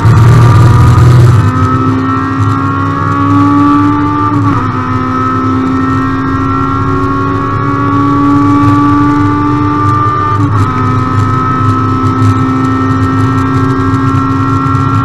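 Proton Iriz R3 race car's 1.6-litre naturally aspirated Campro four-cylinder engine heard from inside the cabin, pulling hard at full throttle with its pitch climbing steadily. The note breaks briefly twice, about four and a half and ten and a half seconds in, at gear changes.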